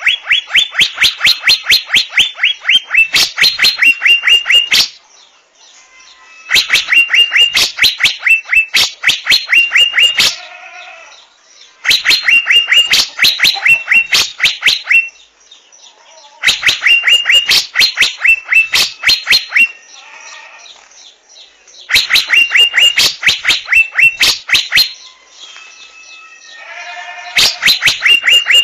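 Asian fairy-bluebird calling: six loud bursts of rapid, sharp repeated notes, about four or five a second, each burst lasting a few seconds. Between the bursts come short pauses with softer, lower warbling notes.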